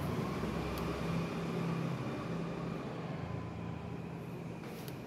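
Steady rumble of a passing motor vehicle, with street traffic noise around it.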